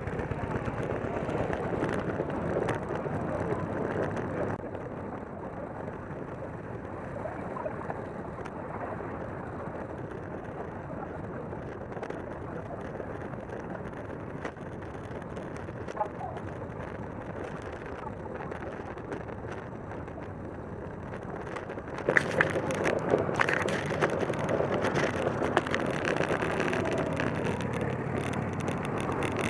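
Steady wind and road noise picked up by a camera on the handlebars of a road bike rolling along in a group ride. About three-quarters of the way through it gets louder and rougher, with scattered sharp knocks.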